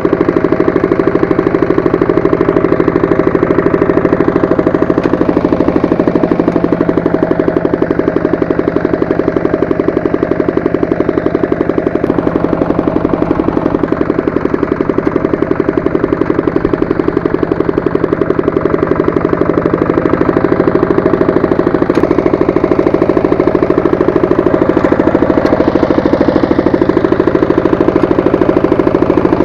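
Walk-behind tractor engine running steadily, driving its rotary tiller.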